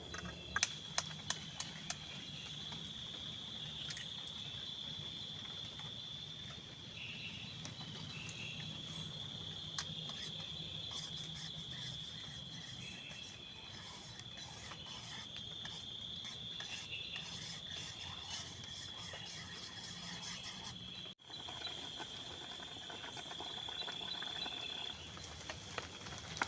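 Insects trilling steadily in one high, even pitch, with scattered sharp ticks, most of them in the first few seconds and again near the end. Everything cuts out for an instant about three-quarters of the way through.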